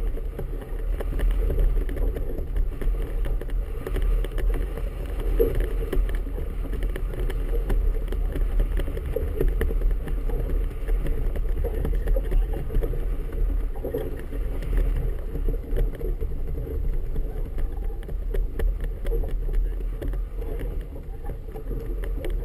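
Steady wind rumble on a GoPro's microphone, with choppy water slapping against the hull of a small boat.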